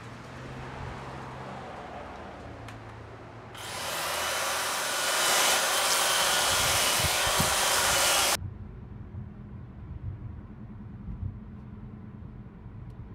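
Power tool run against a carved wooden log, a loud, steady hiss with a faint whine that comes in about three and a half seconds in and builds over about a second. It stops abruptly, giving way to the low rumble of a car driving, heard from inside the cabin.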